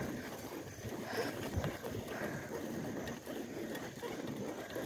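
Bicycle rolling along a paved path on nearly flat tyres: an uneven rumble and rattle from the wheels and frame, with wind buffeting the microphone.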